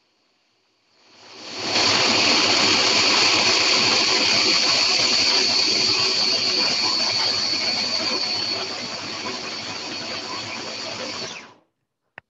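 Food processor running as it blitzes salt with fresh herbs, a gritty churning with a steady high motor whine. It spins up about a second in, eases slightly later on, and cuts off just before the end.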